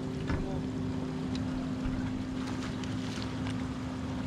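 Bow-mounted electric trolling motor running with a steady hum, with a few faint light clicks over it.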